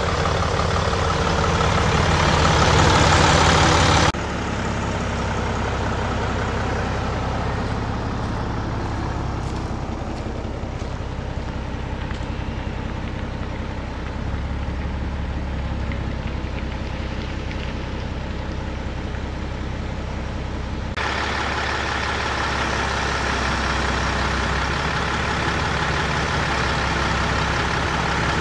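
Scania P93 truck's nine-litre six-cylinder diesel engine running steadily. The sound changes abruptly twice, about four seconds in and about 21 seconds in.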